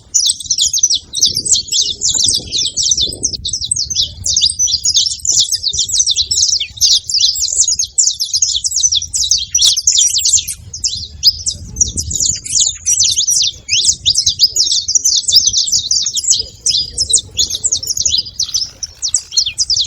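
Several saffron finches (canário-da-terra) chirping together in a dense, continuous stream of rapid, high, short notes.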